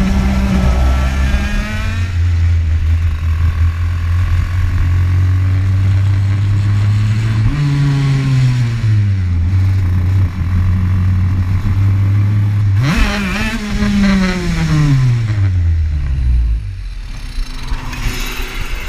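TM KZ10B 125 cc two-stroke shifter kart engine running at low revs, with a short blip of throttle about a third of the way in and another about two-thirds in, the revs falling away after each. Near the end the engine note slides down and stops, and it goes quieter.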